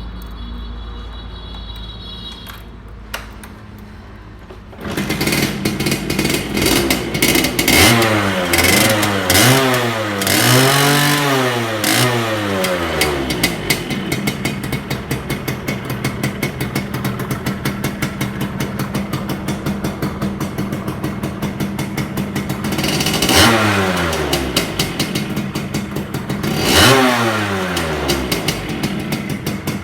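Two-stroke motorcycle engine starting about five seconds in and revved up and down several times in quick succession, then idling steadily with two more short revs near the end.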